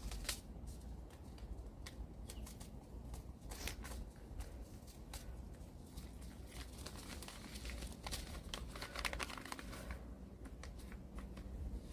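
Seed packet crinkling and rustling as it is handled, in scattered short crackles over a low steady rumble.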